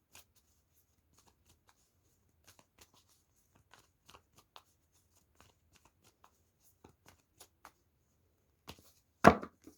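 Tarot cards being shuffled and handled: sparse, faint flicks and rustles of the cards, with one louder slap or knock near the end.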